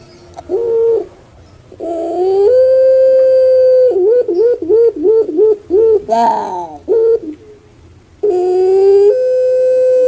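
Female puter pelung dove (Barbary dove, Streptopelia risoria) cooing. A short call about half a second in, then a long held coo, a run of quick wavering notes, and a second long held coo starting near the end.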